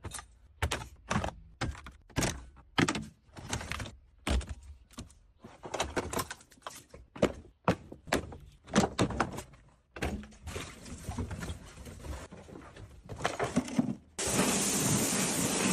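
A run of irregular knocks and clunks, several a second, followed by a loud steady rushing noise that starts suddenly near the end.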